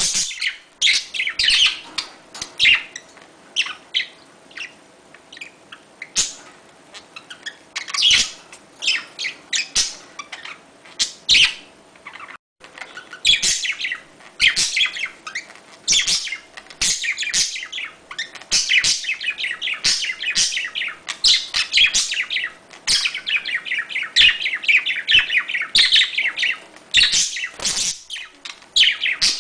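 Budgerigars chattering during mating: a dense, fast run of high chirps and warbles that keeps on almost without pause, broken by a very brief gap about twelve seconds in.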